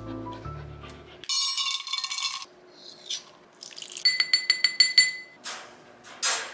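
Metal spoon clinking about ten times in quick succession against a stainless-steel dog bowl while stirring food, each clink ringing. It follows a second-long rush of bright, noisy sound. Music fades out at the start.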